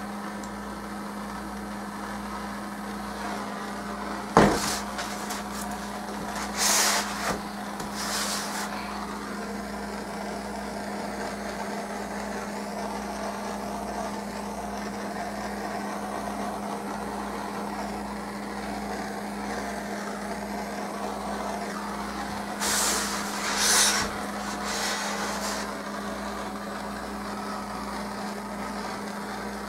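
Handheld plumbing torch burning with a steady hiss over a constant low hum. A sharp knock comes about four seconds in, and the hiss briefly surges louder a few times, around seven and eight seconds and again near twenty-three seconds.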